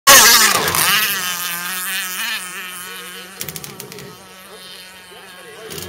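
Modified Zenoah two-stroke gas engine of an RC rigger hydroplane buzzing at full throttle. It is loudest as the boat passes close at the start, then fades steadily as it runs away across the water.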